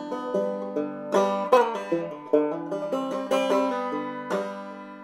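Background music: a plucked banjo tune in a bluegrass or country style.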